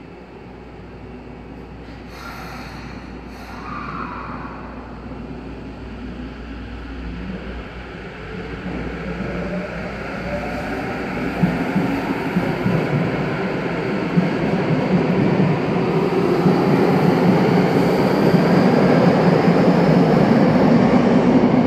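Namboku Line subway train pulling out of the station. Its traction motors give a rising whine as it accelerates, and the running noise grows steadily louder. A few short clicks come about two seconds in.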